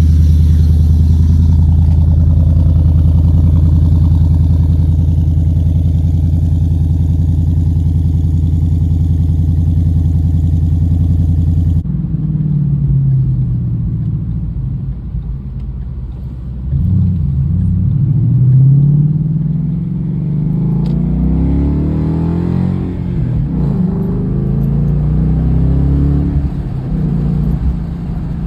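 Ford Mustang GT's Coyote 5.0 V8 on a cold start, exhaust still running through its stock resonators, holding a steady fast idle. About twelve seconds in, the sound changes abruptly to the engine revving up and down.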